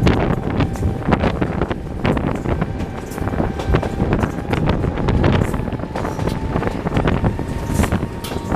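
Running noise of a passenger train hauled by a BDZ Class 07 'Ludmilla' diesel locomotive, heard from the first coach with wind buffeting the microphone: a steady rumble with irregular clicks and knocks from the wheels on the track.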